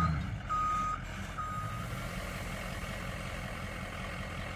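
A truck's backup alarm beeps steadily, three beeps about a second apart, and stops about two seconds in. The truck's engine keeps running, a low steady rumble. The truck is backing up to dump a load of wood chips.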